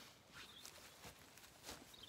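Near silence, broken by a few faint soft knocks and rustles of Zwartbles lambs moving about on the grass. The clearest knock comes near the end.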